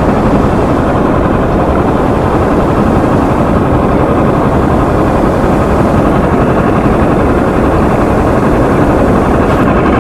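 A loud, steady engine running under a rushing noise, with no change in speed or pitch.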